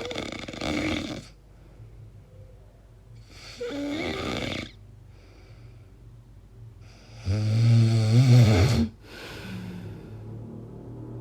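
A sleeping person snoring, one breath about every four seconds, several carrying a wavering, pitched vocal tone along with the rasp. The loudest, about seven seconds in, has a deep rattle. The sleeper wonders whether these noises are a sign of sleep apnea.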